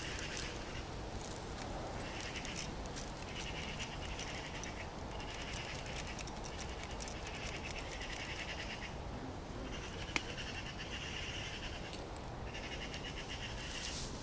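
An animal calling over and over in short buzzy phrases, each about a second long and a second or so apart, with a few faint clicks and rustles in between.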